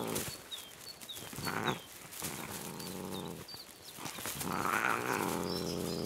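European wildcats growling in three rough, drawn-out bouts, the last the longest and loudest, as the young cats' play turns aggressive. A small bird chirps several times in the first two seconds.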